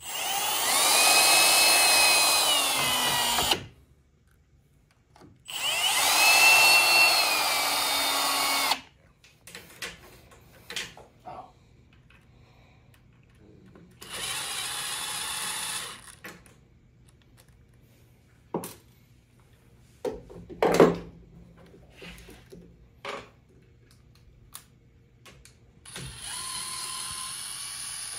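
Cordless drill fitted with a driver bit, run four times, driving screws. The first two runs are long and loud, the motor whine rising in pitch and then holding steady. The two later runs are shorter and quieter, with scattered clicks and a knock between them.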